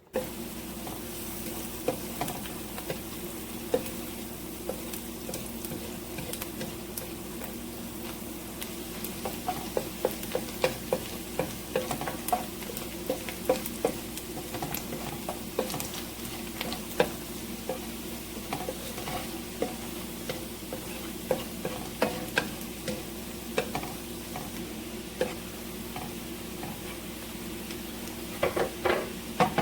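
Finely chopped onion sizzling in butter in a frying pan, stirred with a utensil that knocks and scrapes against the pan over and over. A cluster of louder knocks comes near the end, over a steady low hum.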